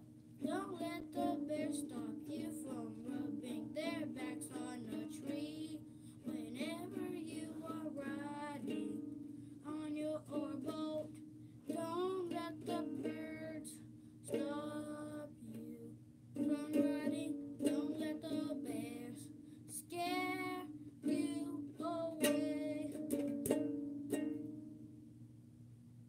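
A child singing while strumming chords on a ukulele. The voice and strumming stop about two seconds before the end, leaving the last chord to die away.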